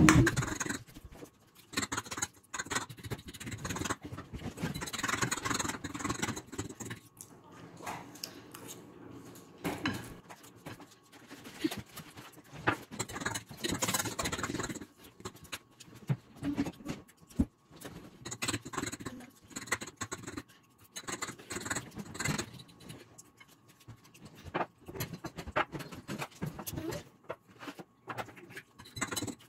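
Close-up eating sounds: a metal fork scraping and clicking on a plate of macaroni, with chewing, in irregular short bursts. Near the end, the screw cap of a glass kombucha bottle is twisted open.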